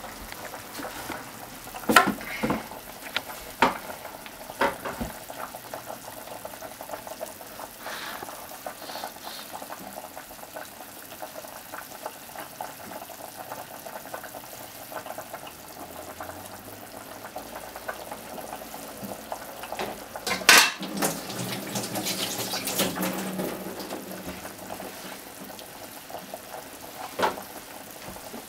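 A few sharp knocks of dishes and utensils, then a pot of potatoes simmering in broth. About twenty seconds in, a loud knock and a few seconds of louder bubbling and splashing as a fried-tofu pouch goes into the pot, with one more knock near the end.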